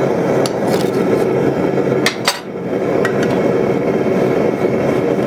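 Propane gas forge burner running steadily, with a few light metal clinks and one sharp clank a little over two seconds in as the steel billet is handled on the metal bench.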